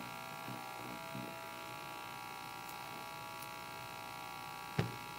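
Steady electrical buzz made of many even, unchanging tones, with a single short thump near the end.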